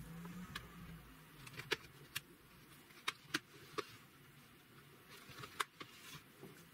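Laptop parts and tools being handled during disassembly. A short low buzz in the first second is followed by about six sharp clicks and taps, scattered unevenly over the next few seconds.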